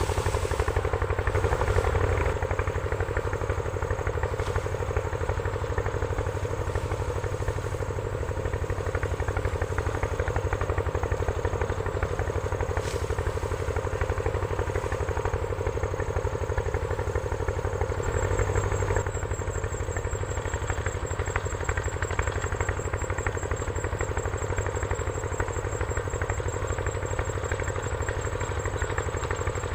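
A small engine running steadily, easing slightly about two-thirds of the way through.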